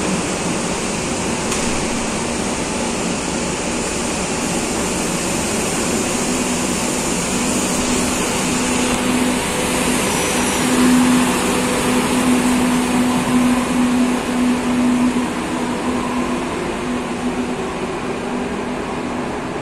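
Madrid Metro series 2000B train pulling out of the platform and running away down the track: a steady rumble of wheels and running gear with a low hum through the middle, easing off toward the end.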